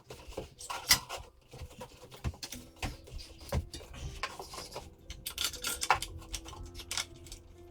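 Irregular clicks, taps and light clatter of hands working on a bicycle's front wheel and tire, with tools and parts knocking together. Faint steady tones come in about two and a half seconds in.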